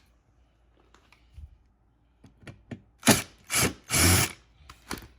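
Power drill driving screws into seat hardware in three short trigger bursts, the last a little longer, with a few light clicks of parts being handled before them.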